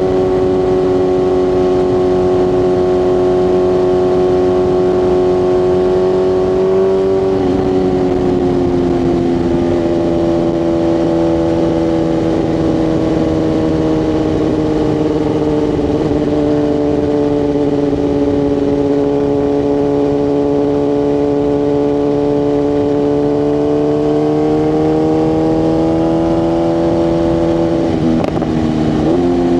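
BMW S1000RR inline-four engine under way, held at a steady pitch, dropping at a gear change about seven seconds in, slowly falling and then climbing, with another quick shift near the end.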